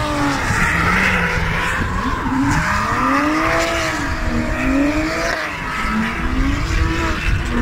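Two drift cars sliding through a corner in tandem, their engines revving up and down several times in long swells while the tyres squeal.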